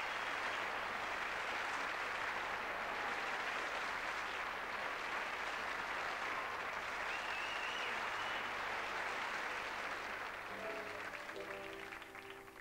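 Studio audience applauding steadily. Near the end the applause dies away as the band comes in with held notes.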